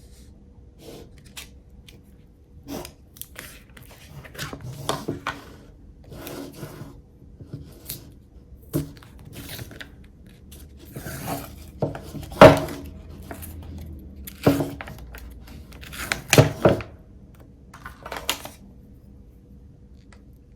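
Kitchen handling sounds: a series of irregular knocks, clinks and rustles of dishes, utensils and packaging, the sharpest knock about halfway through.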